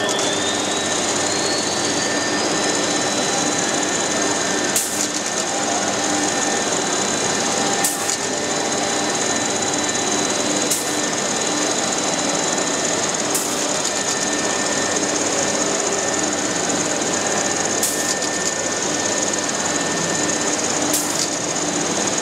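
A CNC machine running: the spindle's high whine rises in pitch over the first few seconds, then holds steady over a dense mechanical noise. A few short sharp clicks come every few seconds.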